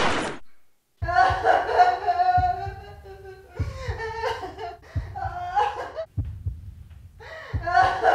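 A pistol shot rings out and dies away in the first half second. About a second in, soundtrack music begins: a melody of long held notes over a slow, low thump a little over a second apart, like a heartbeat.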